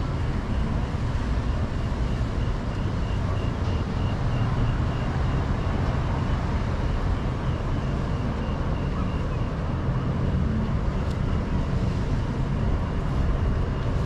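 Steady city street ambience with traffic rumble, heaviest in the low end. Through most of it a faint high-pitched beep repeats about twice a second.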